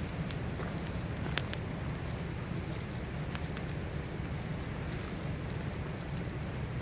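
Fire crackling, with sparse sharp pops over a steady low rumble.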